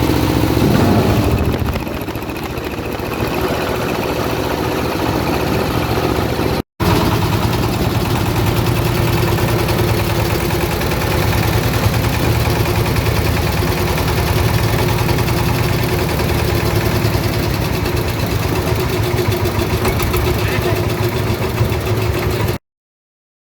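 Coconut husk grinding machine (cocopeat mill) running with a steady engine-like hum. There is a split-second gap about seven seconds in, and it cuts off suddenly near the end.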